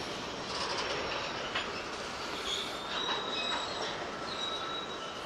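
Freight train of covered hopper cars rolling past, its steel wheels squealing in thin, high steady tones against the rails over a steady rumble, with a few faint clicks.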